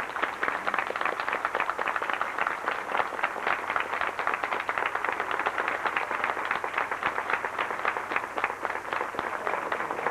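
Audience applause: many hands clapping together at a steady, even level.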